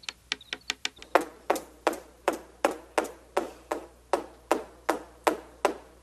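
Small hammer tapping: a run of light, quick taps, then from about a second in steady, louder strikes about three a second.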